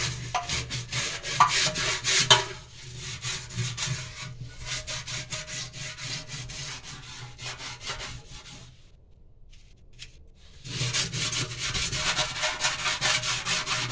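Scrubbing a stainless steel kitchen sink coated with a detergent and baking-soda paste: quick back-and-forth rubbing strokes on the steel. The strokes stop for about two seconds roughly two-thirds of the way in, then start again.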